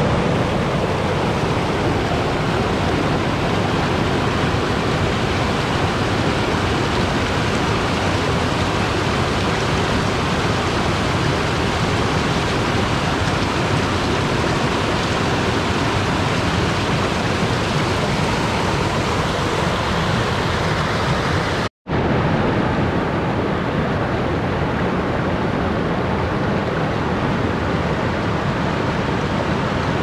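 Waterfall: a steady rush of falling water. It cuts out for an instant about two-thirds of the way in, and the hiss is slightly duller afterwards.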